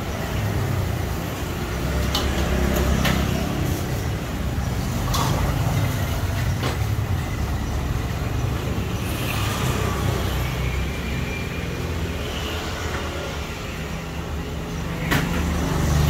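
Battered banana slices deep-frying in a wok of hot oil, over a steady low rumble. A few sharp clinks of the metal frying utensil against the wok, the loudest about fifteen seconds in.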